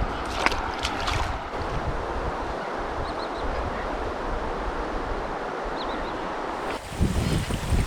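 Steady rush of surf and water at a river mouth, with a few faint high calls. Wind starts buffeting the microphone near the end.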